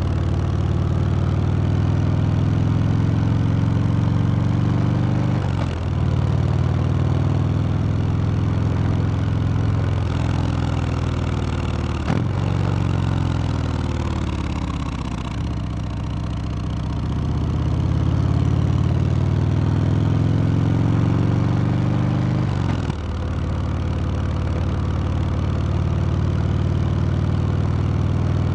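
Harley-Davidson Sport Glide's V-twin engine and exhaust running under way, with brief breaks at gear changes about 6, 10, 12 and 23 seconds in. Its pitch falls as the bike slows in the middle, then climbs again as it accelerates.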